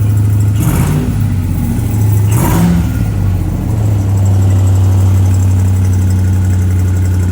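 Turbocharged engine with a blown turbo running at idle. It is revved briefly twice with a rushing, air-like noise, then settles back to a steady idle. The owner takes the sound for a failed turbo with its wastegate stuck open.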